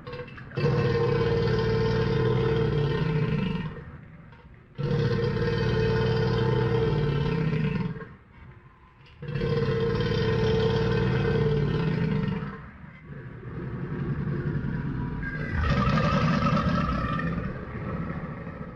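Crocodile sound effect: the same long, low call repeated three times, each lasting about three seconds with short gaps between, then a longer call that swells louder and stops near the end.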